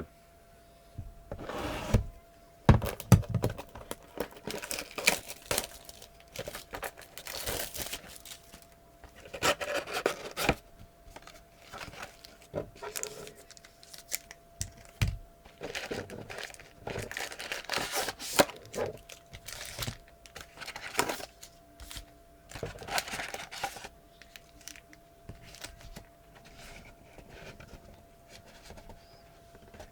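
Trading-card packs being torn open by hand and their wrappers crinkled, in an irregular string of tearing and rustling noises with short pauses between.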